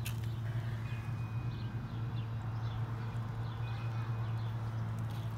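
A steady low machine hum with faint short high chirps scattered over it, and a single click at the start.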